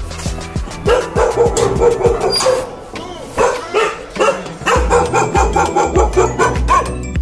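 A dog barking repeatedly.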